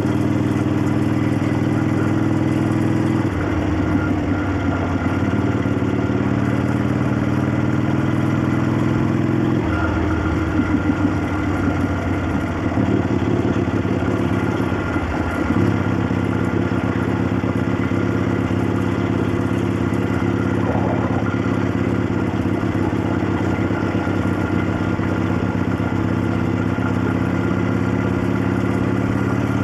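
1965 Harley-Davidson XLCH Sportster's 883 cc Ironhead V-twin running under way at a steady, loud level, its engine note shifting abruptly a few times. The exhaust is heard with the clacking of its noisy valvetrain.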